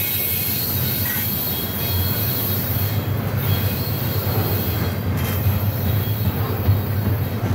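Double-stack intermodal freight train's loaded well cars rolling past on curved track, their steel wheels rumbling steadily on the rails. A high wheel squeal from the flanges on the curve fades out about three seconds in, and a few sharp clacks follow.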